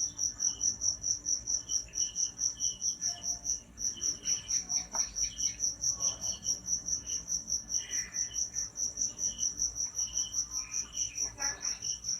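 Steady cricket chirping, one high-pitched pulse repeating about five or six times a second without a break, with fainter, lower chirps coming and going.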